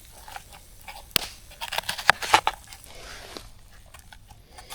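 Irregular rustling and scattered clicks from things being handled, with one sharp click about a second in and a busier patch of rustling just before halfway.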